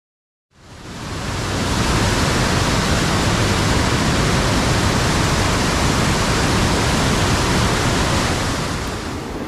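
A swollen, muddy river in flood, rushing and churning past a bridge pier: a loud, steady rush of water that fades in over the first second or so and eases slightly near the end.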